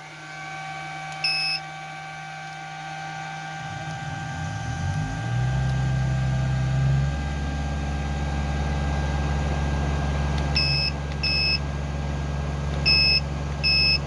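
A 12 V camper air conditioner switching on. It gives a short electronic beep, then its motors hum rising in pitch and settle into a steady hum after about five seconds. Two pairs of control-panel beeps come near the end as the fan setting is changed.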